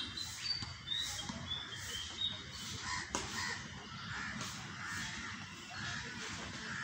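Birds calling in the background: repeated rough calls throughout, a few short high chirps near the start, and one sharp knock about three seconds in.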